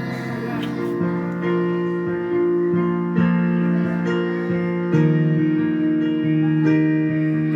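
Instrumental accompaniment on a keyboard: sustained chords under a slow melody, with no singing, as an interlude between sung lines of a choir song.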